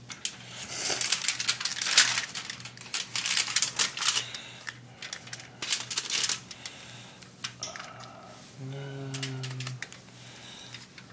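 Aluminum foil crackling and rustling under hands handling whole raw trout, in rapid irregular clicks that are densest over the first six seconds and thin out after.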